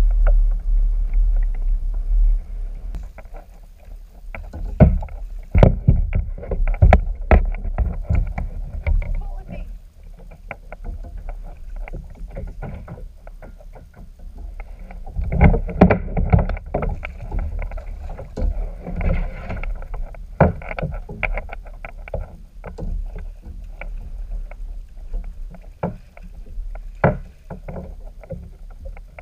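Kayak on choppy water in strong wind: water slapping against the hull, with many short knocks and rattles from the boat and gear, over a low wind rumble on the microphone that is heaviest at the start.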